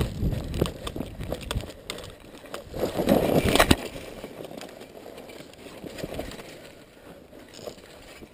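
Footsteps and scuffing on dry, stony ground with gear rustling, with a louder stretch of scuffling about three seconds in, then quieter, scattered steps.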